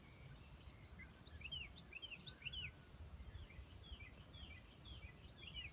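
Faint birdsong: a quick run of short, arching chirps repeating throughout, over a low background rumble.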